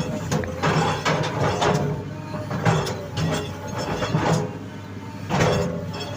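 Excavator running, a steady diesel hum under repeated metallic clanks and knocks, with some squealing of metal on metal.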